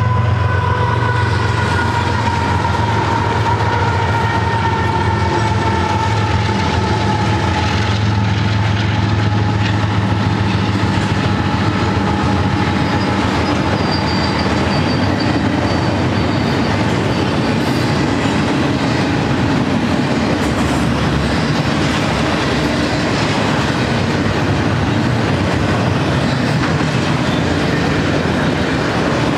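BNSF double-stack intermodal train passing close by, loud and steady: a deep diesel rumble from its GE ES44C4 locomotives for about the first twelve seconds, then the continuous rolling noise of the well cars' wheels on the rails. A set of high tones slowly sliding down in pitch sounds over the first ten seconds or so.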